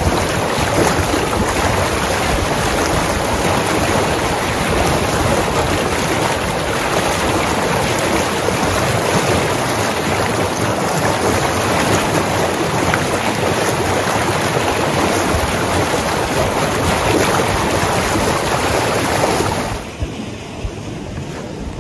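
Water rushing steadily through a roadside snow-disposal ditch. It drops to a lower level about 20 seconds in.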